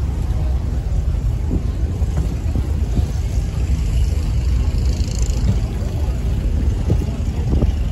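A steady low rumble with faint crowd chatter mixed in.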